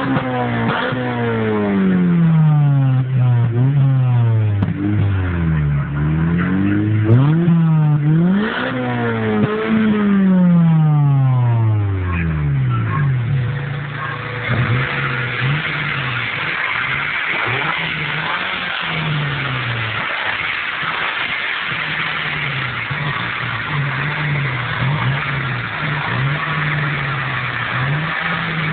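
Honda CRX del Sol VTi's 1.6-litre VTEC four-cylinder exhaust note: the engine is revved repeatedly for about twelve seconds, pitch rising and falling with each blip, then runs at a steadier, lower speed with small rises and falls.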